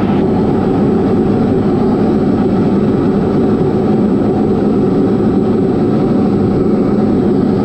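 Diamond DA40's piston engine and propeller droning steadily in cruise, heard inside the cockpit.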